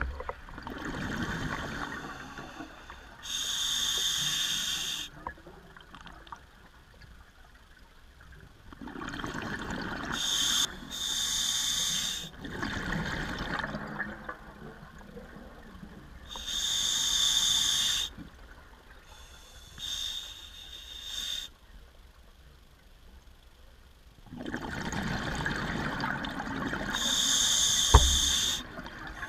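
Scuba diver breathing through a demand regulator underwater: hissing inhalations alternating with bubbling exhalations, about four or five breaths with quiet pauses between them. A single sharp knock near the end.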